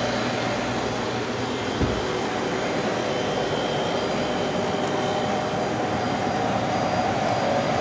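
Steady hum of running cooling machinery, with a soft low thump just under two seconds in.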